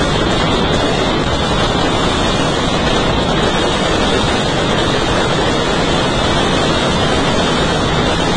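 Firecrackers packed inside burning Ravan effigies going off in a dense, continuous crackle that merges into a steady rushing din with no separate bangs.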